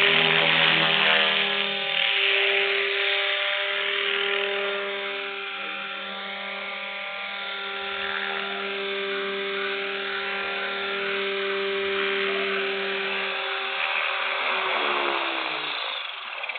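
Radio-controlled flybar helicopter hovering: a steady whine from its motor and rotors, the pitch shifting a little as it holds, then falling over the last couple of seconds. Freshly rebuilt with new spindle, main shaft, flybar and tail boom, it runs smoothly to the owner's ear.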